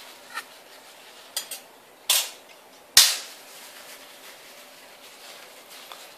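Handling noises as a wet ping-pong ball is taken off metal tongs and wiped in a tissue: a few light clicks, a short rustle of tissue just after two seconds, then a sharp clack at three seconds as the metal tongs are set down on the table.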